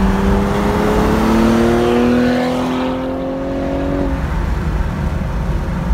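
Cadillac ATS-V coupe's twin-turbo V6 accelerating, its exhaust note rising steadily in pitch for about four seconds and then fading as the car pulls away. Steady road and wind noise runs underneath.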